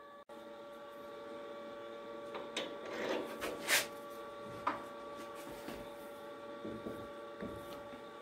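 Handling a brass workpiece in a metal lathe's three-jaw chuck: a short cluster of metallic clicks and knocks, loudest about four seconds in, over a steady workshop hum.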